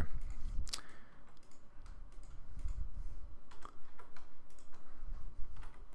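Computer mouse clicking a few times, placing path nodes, with the clearest click near the start and a close pair past the middle, over a faint low hum.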